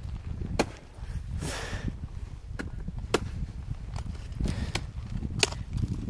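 Ice axe picks striking into waterfall ice: a few sharp, separate thwacks a second or more apart, the freshly sharpened picks biting cleanly.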